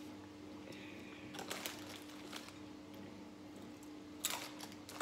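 Quiet eating of noodle soup: a few faint clicks of chopsticks and spoon against the bowl, and a short breathy sound about four seconds in as a mouthful is taken, over a steady low hum.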